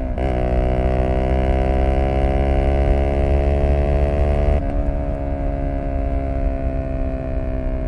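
Zontes U125 scooter's single-cylinder 125 cc engine breathing through an aftermarket BlackWidow exhaust, pulling under throttle with its pitch climbing slowly. About four and a half seconds in, the throttle closes and the note drops to a softer drone that sinks slowly as the bike coasts.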